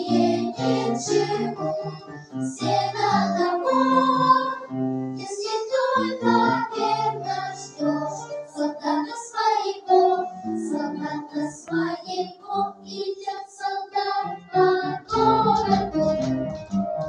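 Children's choir singing a song over a musical accompaniment; near the end the accompaniment fills out and goes deeper.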